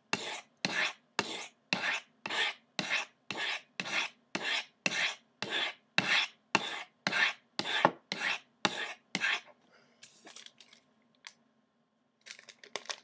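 Knife blade drawn down the medium-grit ceramic rods of a Lansky Crock Stick sharpener, alternating rods: an even run of quick scraping strokes, about two a second. The strokes stop about nine seconds in, leaving a few faint handling clicks.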